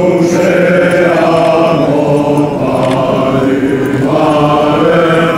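French Foreign Legion soldiers singing a marching song in unison as they march, a choir of men's voices holding long notes. One phrase tails off about two and a half seconds in and the next starts about a second later.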